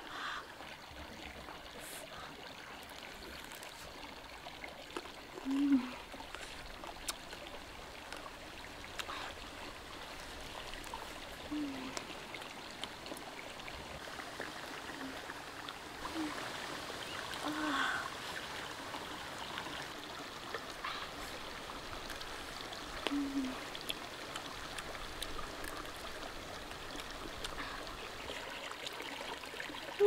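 A stream running steadily, with about half a dozen short low hums of a voice and faint small clicks from roasted bird being torn and chewed.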